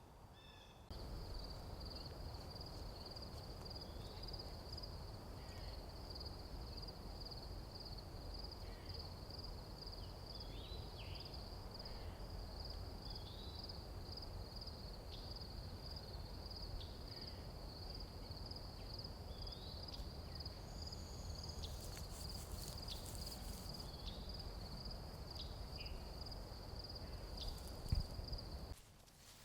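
Outdoor natural soundscape: a steady, finely pulsed high trill held unbroken over a low rumble, with scattered short bird chirps. A single knock comes near the end. The whole bed starts and stops abruptly.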